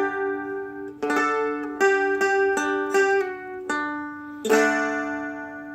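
Seagull Merlin M4, a four-string strum stick, strummed in a short rhythmic chord riff of about seven strums with open strings ringing under them. The last chord, about four and a half seconds in, is left to ring and fades.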